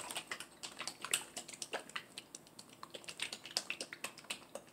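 Bottle of Samyang 2x Spicy sauce being shaken by hand: a quick, irregular run of light clicks and taps, several a second.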